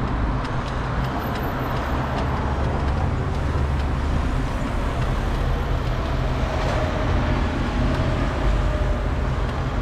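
Steady road traffic noise, with a faint steady hum joining about six seconds in.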